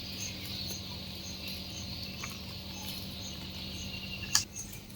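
Insects chirping steadily, crickets by their sound, with a faint pulse about twice a second over a low steady hum; one sharp click about four seconds in.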